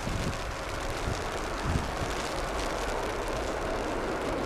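Jet engines of a United Airlines Boeing 787-8 on departure, a steady rushing roar, with a few soft gusts of wind on the microphone.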